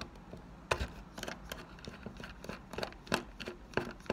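Precision T9 Torx screwdriver turning a small screw out of a Sennheiser wireless receiver pack's circuit board: faint, irregular light clicks and ticks, a few each second, as the bit turns in the screw head and the fingers reset their grip.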